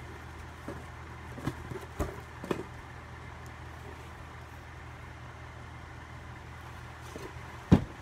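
Cardboard box being handled: a few light knocks in the first few seconds, then one loud thump near the end as the box is set down. A steady low hum from running fans sits underneath.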